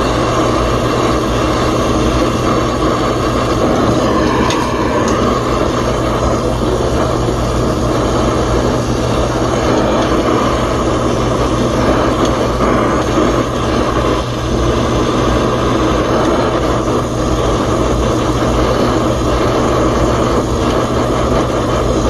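Brazing torch flame burning steadily against a copper joint on a thermostatic expansion valve, heating it to melt the braze and unsweat the valve. A steady low hum runs underneath.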